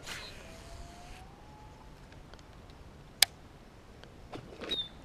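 A cast with a fishing rod from a kayak: a brief swish with line paying out for about a second. About three seconds in comes a single sharp click from the reel. A short high chirp follows near the end.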